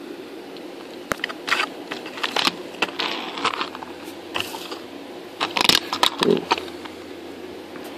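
Die-cast Hot Wheels Dodge Viper toy car being handled and pushed about on a tabletop: irregular light clicks, scrapes and short rattles, with a cluster of louder scrapes a little past the middle.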